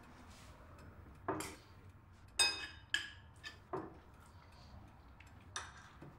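Metal spoons clinking against bowls as two people eat: about five separate clinks, the loudest one about two and a half seconds in ringing briefly.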